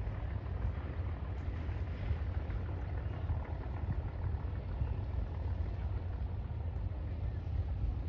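Wind buffeting the microphone: a steady, uneven low rumble with a faint hiss of open air above it.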